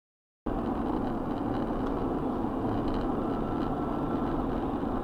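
Steady road and engine noise of a car driving at highway speed, picked up by a dashcam inside the car; it cuts in abruptly about half a second in, after silence.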